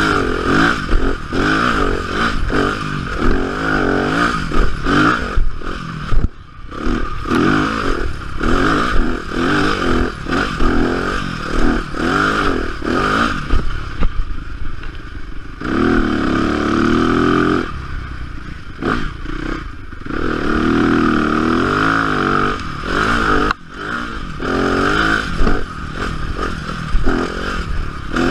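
Yamaha dirt bike engine revving up and down under hard riding, the pitch rising and falling with the throttle and dropping off briefly twice as the throttle is chopped. Knocks and rattles from the bike over the rough trail come through with it.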